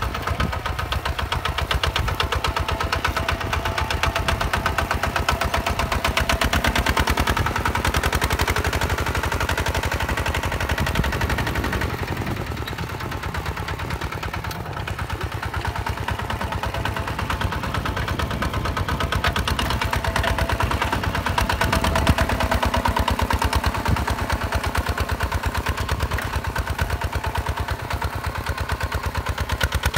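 Single-cylinder diesel engine of a two-wheel walking tractor chugging steadily under load as it pulls a plough through dry soil, a rapid, even run of firing pulses that eases slightly for a few seconds mid-way.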